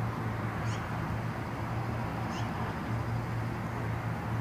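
An animal's short, high call that falls in pitch, heard twice about a second and a half apart, over a steady low hum and an even hiss.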